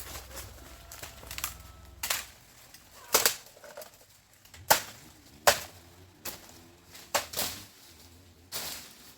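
About eight sharp knocks or strikes at uneven intervals, the loudest about three and five and a half seconds in.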